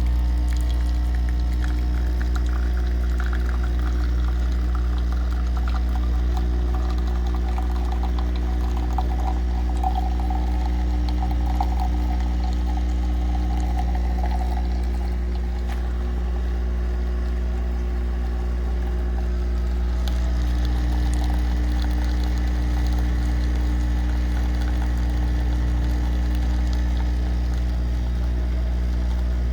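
Nespresso CitiZ espresso machine brewing a lungo: its vibration pump buzzes steadily and loudly. Over roughly the first half, coffee streams and gurgles into the cup.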